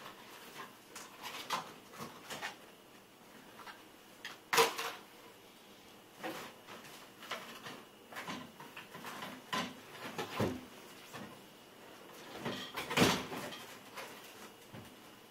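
Scattered knocks and clunks of kitchen things being handled and put away in cupboards, with a sharp knock about four and a half seconds in and a louder, slightly longer clatter about thirteen seconds in.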